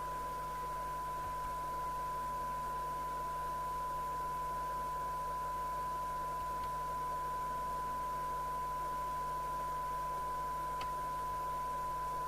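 Steady 1 kHz test tone from the Rotel RVC240 FM CB radio's speaker, received from a strong signal-generator test signal during receiver alignment, with a faint hiss underneath.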